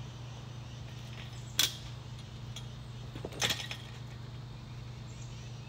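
Two short, sharp knocks about two seconds apart, the second a quick double, over a steady low hum.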